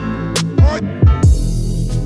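Background music with a beat of deep, pitch-dropping kick drums and sharp snare hits, and a wash of noise that comes in for the last part.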